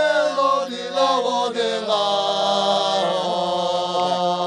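Georgian polyphonic folk singing: several voices hold long notes in close harmony over a steady low drone. The upper voices shift to new notes about two seconds in and again about three seconds in.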